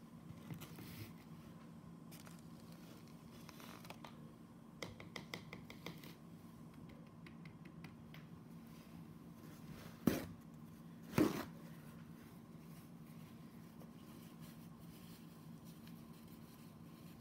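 Faint handling noises over a steady low hum: a quick run of light clicks about five seconds in, then two short scraping sounds around ten and eleven seconds.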